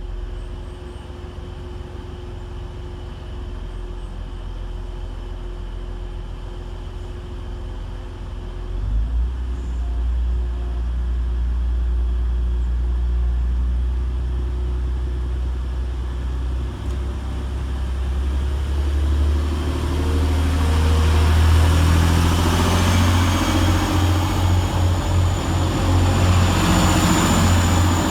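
Diesel multiple-unit train engine running with a deep rumble that steps up about nine seconds in, then grows louder with rushing noise of the train on the move and a thin high whine near the end.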